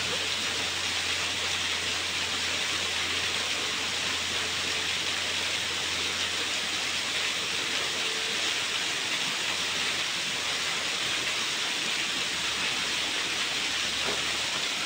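Water from a small garden waterfall splashing steadily into its pool, an even hiss with no breaks.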